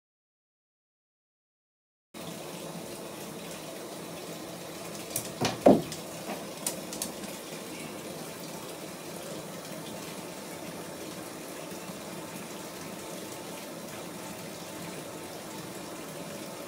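Water running steadily into a bathtub from its tap. About five seconds in, a short loud splash with a few knocks, as a bath bomb drops into the water, then a couple of smaller knocks.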